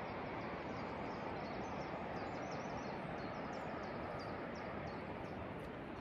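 Steady outdoor background noise, an even rushing hiss, with many faint, quick, high chirps of small birds through it.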